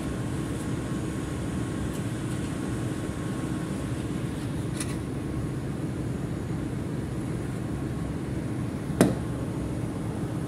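Steady hum of ventilation and running machinery in a ship's engine control room, with a sharp knock about nine seconds in and a couple of fainter clicks as steel tool parts are handled and set down on the bench.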